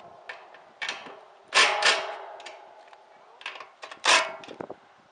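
Sharp metallic knocks and clanks, each ringing briefly, from the satellite dish mount and its hardware being handled while the dish's pitch is adjusted; the loudest come about a second and a half in and about four seconds in.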